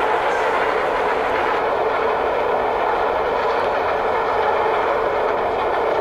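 A train running past, a steady loud rush of rolling noise with faint high steady tones joining about one and a half seconds in.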